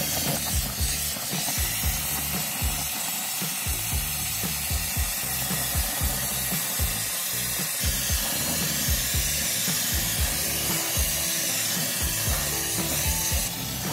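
Background music with a steady low beat, over the steady hiss of an LPG-oxygen torch flame heating silver granules and borax flux in a crucible.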